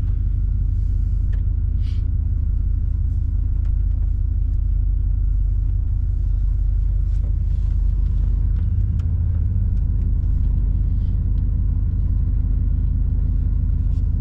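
Vehicle engine idling with a steady low rumble, with a few faint clicks over it.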